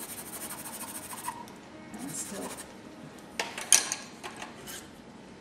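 A pastel pencil scratching on pastel paper for about a second, then pencils clicking and clattering against each other as they are sorted through, with one sharp click the loudest, a little past the middle.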